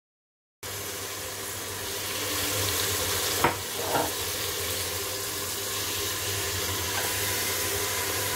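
Soaked, drained lentils sizzling as they are ladled into hot fried masala in an aluminium pressure cooker; the sizzle grows a little louder about two seconds in. A metal ladle knocks on the pot twice, about half a second apart.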